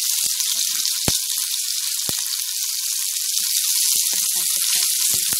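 Chicken pieces and ginger frying in hot oil in a pan: a steady sizzle with scattered pops and crackles.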